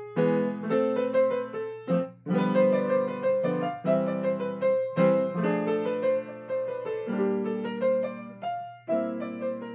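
Grand piano played solo: freely improvised chords with a melody over them, a new chord struck every half second to a second and left to ring.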